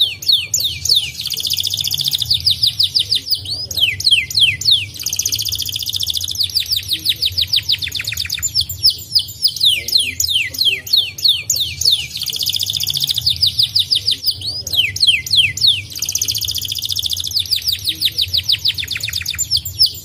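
White domestic canary singing a continuous song: quick runs of sharply falling whistled notes alternating with rapid buzzy trills, the phrases coming round every few seconds.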